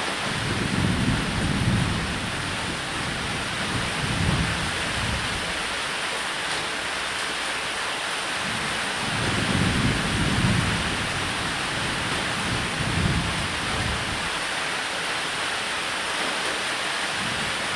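Steady rain hissing throughout, with several rolls of thunder: low rumbles that swell and fade at the start, about four seconds in, and twice more in the second half.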